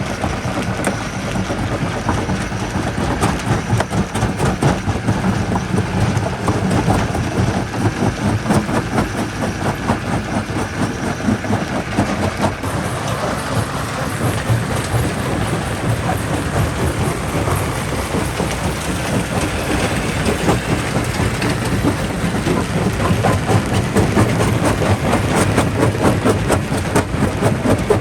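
Quarry jaw crusher running, a steady low drone under a dense, continuous clatter of rock knocking and cracking as stone is crushed in the jaws.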